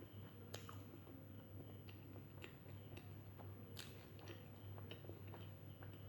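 Faint close-miked chewing and eating: small wet mouth clicks and smacks, with two sharper clicks about half a second and nearly four seconds in, over a steady low hum.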